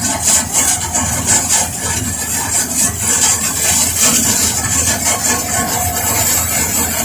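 Vishal combine harvester running steadily while cutting a mustard crop: a continuous engine rumble under a loud, rasping hiss from the cutting and threshing machinery.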